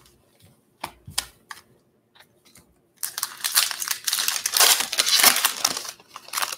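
A few light clicks as foil card packs are handled. Then the foil wrapper of a 2019 Topps Pro Debut baseball card pack is torn open and crinkled, a loud crackling that lasts about three seconds.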